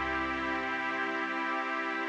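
Background music of sustained, held chords with no beat; its low bass notes fade out about a second in.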